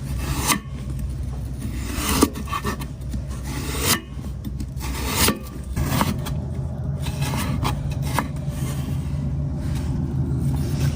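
Kitchen knife working a raw potato, rasping and scraping with a few sharp knocks.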